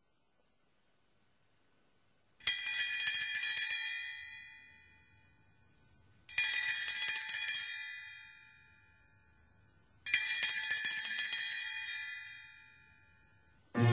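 A bell shaken three times, about four seconds apart. Each ringing starts sharply, holds for about a second and then dies away.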